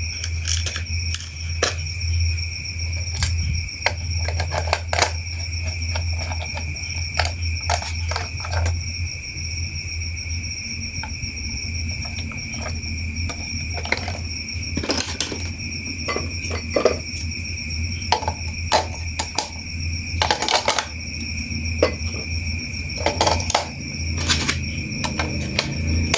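Battery-powered plastic toy train running, its small motor giving a steady high whine over a low hum, with frequent plastic clicks and knocks from the toy and track being handled.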